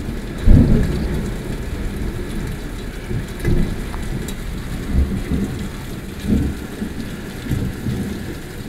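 Thunderstorm: steady heavy rain with low rumbles of thunder, the loudest about half a second in and several smaller ones following.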